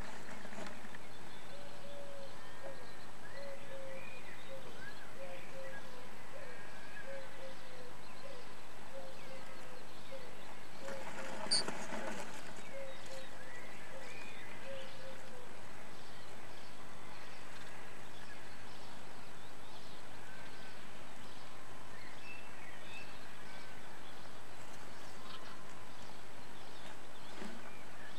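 Steady hiss from the microphone inside a swift nestbox, with faint bird calls from outside, among them a low note repeated a little more than once a second through the first half. About halfway through comes one brief, louder burst of sound from the swifts in the box.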